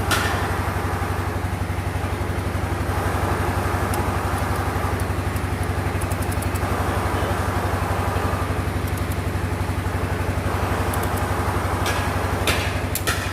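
An engine idling steadily with an even low throb, with a few sharp knocks near the end.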